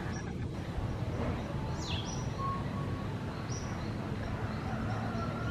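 Saddleback tamarin calls: a few short, high-pitched chirps, one a quick falling squeak about two seconds in, over a steady low background rumble.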